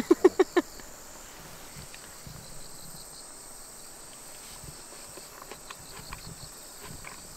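A short laugh of four quick pulses at the very start, then crickets chirping steadily in an autumn field, with a few faint taps near the end.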